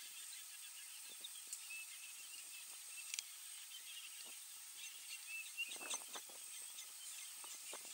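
Quiet outdoor ambience: a steady high hiss with faint bird chirps and scattered soft rustling crackles, a small cluster of them about six seconds in.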